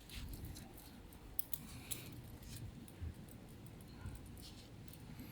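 Faint, scattered clicks and light metallic ticks, like a metal watch and bracelet being handled, with a few sharper clicks about one, two, three and four seconds in.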